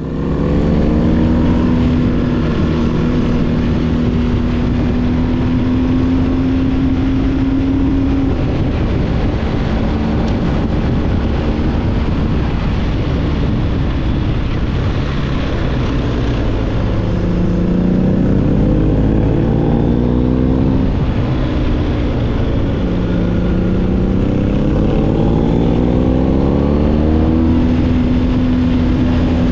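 BMW R1250GS boxer-twin engine through an SC-Project aftermarket exhaust at road speed, with wind rushing over the microphone. It holds a steady note for the first several seconds, then climbs in pitch twice as the throttle is rolled on, dipping briefly between the two climbs.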